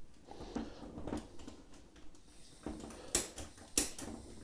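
Sharp clicks of a gas torch's piezo igniter being pressed to light it, the two loudest about three and four seconds in, with a few softer ticks and handling sounds before them.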